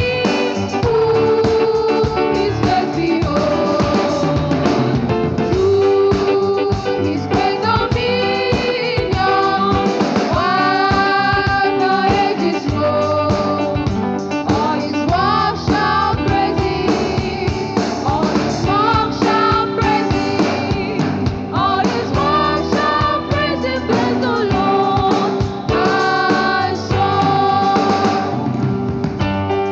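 Gospel worship song: singing over a live band with keyboard, guitar and drums, sung without pause.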